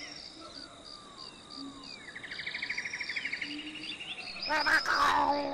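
Nature ambience of insects and birds: a fast pulsing insect trill comes and goes, over a steady run of high chirps, with short falling bird whistles. About four and a half seconds in, a louder pitched call with several tones joins.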